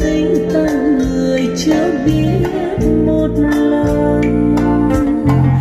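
A Vietnamese bolero song playing through a Pioneer N902 mini hi-fi's speakers: a voice sings a wavering melody over guitar and steady, full bass notes.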